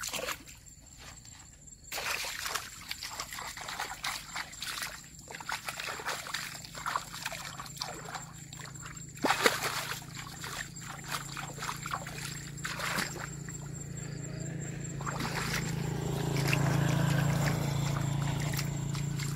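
Muddy water splashing and sloshing in irregular bursts as hands grope through a shallow ditch for fish. A steady low hum builds through the second half and is loudest near the end.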